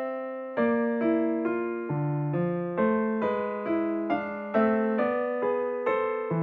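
Background music: an electric piano playing a slow run of chords, each struck note decaying before the next.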